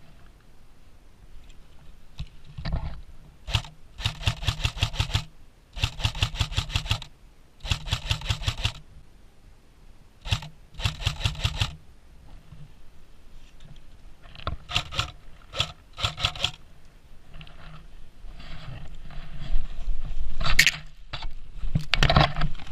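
Airsoft electric gun firing on full auto in several rapid bursts of about a second each, with a few shorter bursts and single sharp cracks later on.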